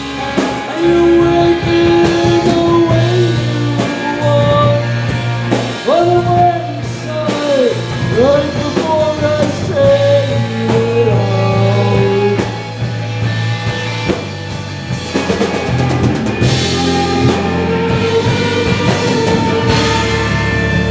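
Live rock band playing: distorted electric guitars, bass and drum kit, with a woman's lead vocal through roughly the first half, after which the band plays on without singing.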